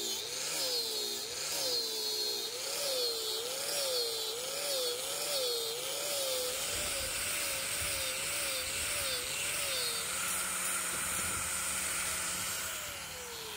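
Electric grinder with a sanding disc running against an ebony axe handle. Its motor whine dips and recovers in pitch about once or twice a second as the disc is pressed onto the wood and eased off. About ten seconds in the pitch holds steady, and near the end it falls as the motor winds down.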